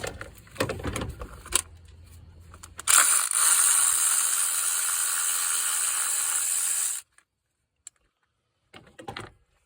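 Hand socket ratchet clicking fast and steadily for about four seconds, spinning out one of the two 10 mm fasteners that hold the bar over the engine, then stopping suddenly. Scattered clicks and knocks of tool handling come before it.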